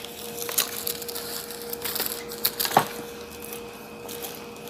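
Handling noise from a fabric carry bag, its strap and plastic oxygen tubing being moved about: rustling and light clicks, with one sharper knock a little before three seconds in. A faint steady hum runs underneath.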